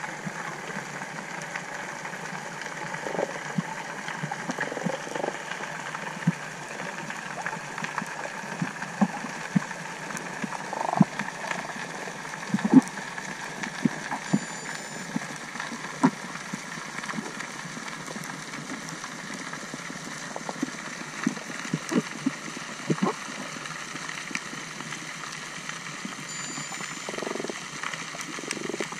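Underwater ambience picked up by a camera in its waterproof housing: a steady hiss with scattered irregular clicks and pops.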